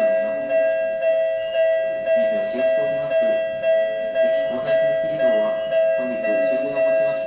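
Japanese railway level crossing alarm ringing at a station crossing: a bell-like tone repeating evenly about twice a second, the warning that a train is approaching and the crossing is closed.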